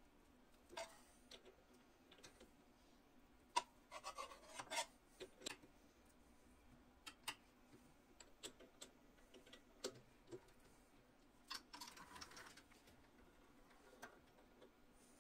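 Faint, scattered clicks and short scraping sounds of small hand work on parts, with a busier patch of scraping about four seconds in and another near twelve seconds.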